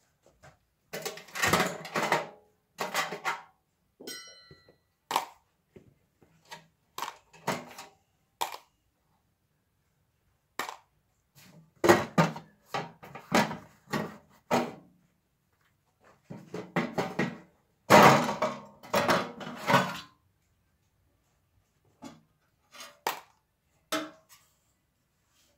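The sheet-metal cover of a Hyundai Sonata hybrid battery pack clanking and thunking as it is handled and lifted off the pack: irregular metal knocks in clusters with short pauses between them, the loudest about halfway and about two-thirds through.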